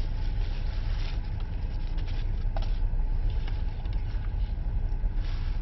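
Steady low rumble of a car heard from inside its cabin, engine and road noise without a break.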